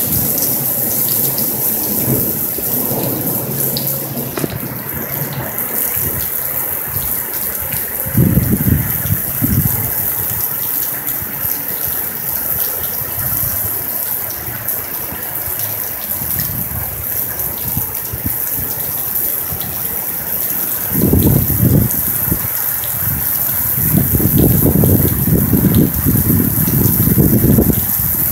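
Steady heavy rain hissing down, with low rolls of distant thunder about eight seconds in and again from about twenty-one seconds, the later one lasting several seconds.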